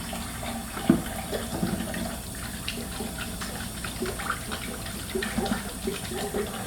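Sticky shaving-cream slime being stirred by hand: a run of irregular wet squelches and small clicks, with one sharper knock about a second in.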